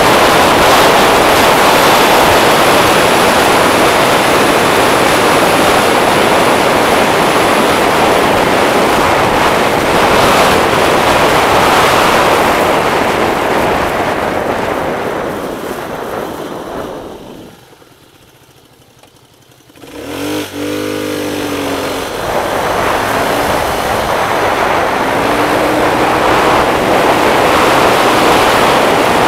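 Heavy wind rush on the microphone from riding a scooter at road speed, fading away as the scooter slows to a stop. After a lull of about two seconds, the scooter's small engine revs with a rising pitch as it pulls away, twice, and the wind rush builds back up.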